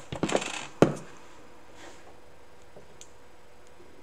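A glue bottle handled with a short clatter, then set down on a wooden tabletop with one sharp knock just under a second in. A couple of faint clicks of plastic buttons follow.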